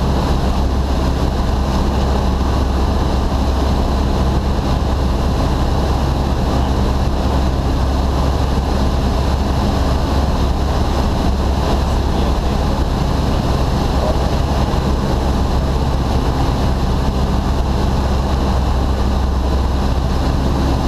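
Steady drone of a single-engine Cessna's piston engine and propeller with wind rush over the airframe, heard inside the cockpit in flight.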